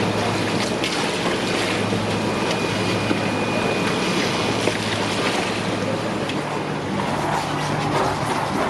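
Steady rushing of running water from live seafood tanks, with a low steady hum of their pumps that shifts higher about six and a half seconds in.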